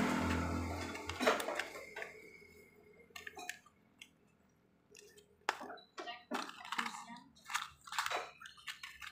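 Scattered light clicks and clinks of small parts being handled at the workbench as piston rings are taken out and readied for fitting. A passing vehicle's engine fades away in the first second or two.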